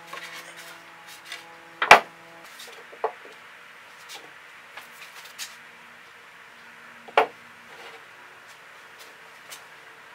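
Wooden shelf boards and black-iron pipe legs with floor flanges knocking together as the boards are set onto the legs. There are a few sharp knocks, the loudest about two seconds in and another about seven seconds in, with lighter taps between. A steady low tone stops about two and a half seconds in.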